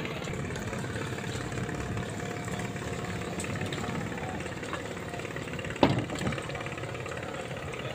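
Passenger speedboat's engine idling steadily, with one sharp knock about six seconds in and a smaller one just after.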